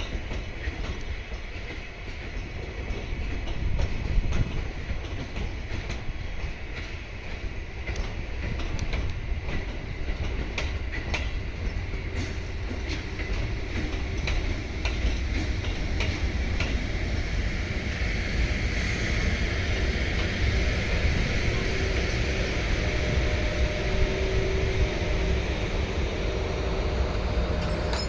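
An EF81 electric locomotive hauling an E531 series electric multiple unit passes with a steady low rumble. Its wheels click over the rail joints throughout.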